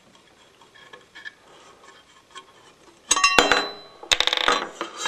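Metal parts clattering and ringing in three short bursts in the second half, after a few faint clicks, as the side face cover comes off the head of an industrial walking-foot sewing machine.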